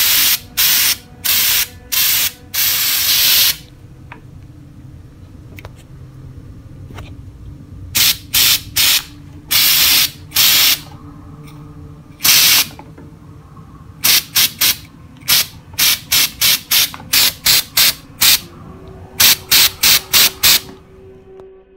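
Aerosol can of textured spray paint being sprayed in short hissing bursts, a few of them about a second long, in clusters with pauses between.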